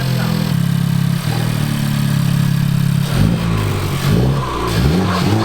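Honda Civic Type R's 2.0-litre turbocharged four-cylinder engine, breathing through a PRL high-volume intake, held at a steady raised engine speed for about three seconds, then revved up and down in several quick blips.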